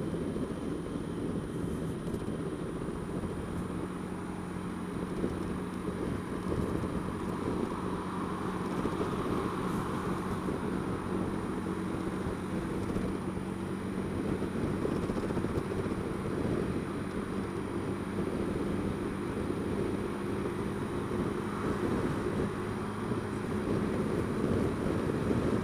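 Honda Dio scooter's engine running at a steady speed while riding in traffic, a steady hum over road noise.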